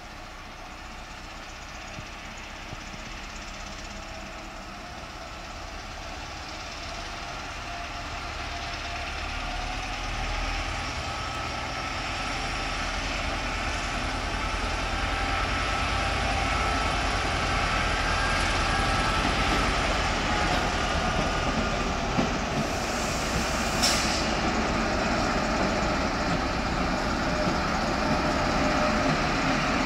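ÖBB class 2068 diesel-hydraulic shunting locomotive hauling a rake of Nightjet coaches, the engine and rolling train growing steadily louder as it draws nearer. A single sharp click comes near the end.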